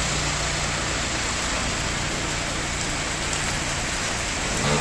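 Steady hiss of heavy rain and water on a flooded street, with a car engine's low hum underneath.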